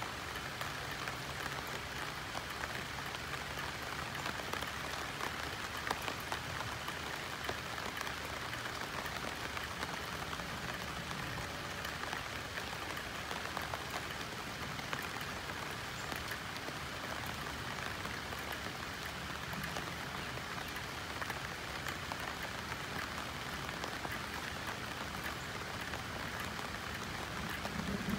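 Steady rain pattering on banana leaves, a dense even patter of drops with frequent small sharp taps.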